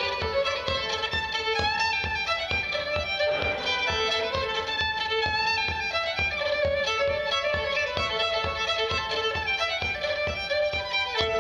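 Solo fiddle playing a fast traditional dance tune in quick, unbroken runs of short bowed notes.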